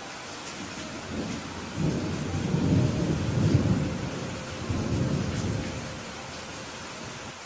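Steady rainfall with a low, soft rumble of thunder that builds about a second in, swells twice and dies away before the end.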